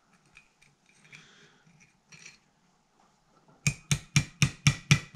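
Faint clicks of small parts being handled, then about three and a half seconds in, a rapid run of sharp metallic taps, about five a second, as a small part is tapped into place in an Edelbrock Performer carburetor body.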